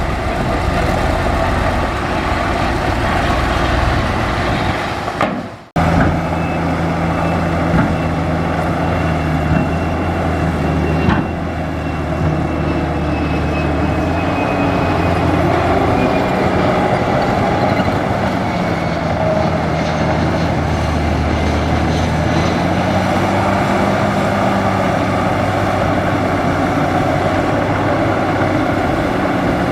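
Large bulldozer's diesel engine running steadily while pushing dirt, with a faint high whine above it. It cuts out for a moment about five seconds in, then its pitch sags and recovers a couple of times later on as the load changes.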